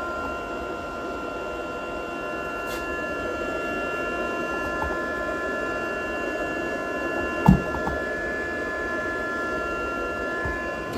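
Procolored K13 Lite DTF printer humming steadily while it runs a printhead cleaning cycle, with a single sharp click about two-thirds of the way through.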